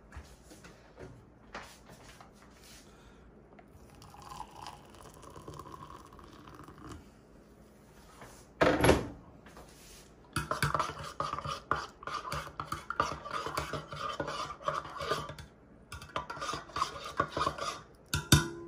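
A metal spoon stirring tea in a stainless steel mug, clinking and scraping against its sides for about eight seconds in the second half. Shortly before the stirring there is one brief loud splash or knock.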